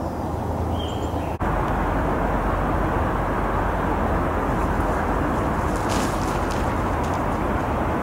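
Steady outdoor background rumble heard on the camera's microphone, a dull even noise that gets louder about a second and a half in and then holds, with one short high chirp just before that.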